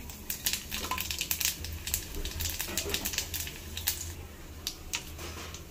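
A tempering of mustard seeds, cumin seeds and dried red chillies spluttering in hot oil: a quick, irregular crackle of sharp pops that thins out after about four seconds.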